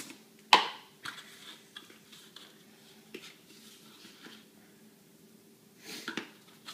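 Large plastic protein-powder tub being handled while a scoop of powder is added to a steel bowl: one sharp plastic knock about half a second in, then a few light clicks and a short rustle near the end, over a faint steady hum.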